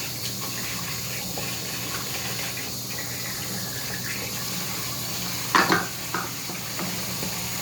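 Bathroom sink tap running steadily while something is rinsed under it, with a brief knock against the sink about five and a half seconds in.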